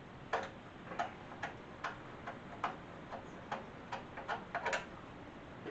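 Ratchet wrench clicking in a run of about a dozen clicks, roughly two a second, as bolts are backed out of a garden tractor's steering tower; the clicks stop shortly before the end.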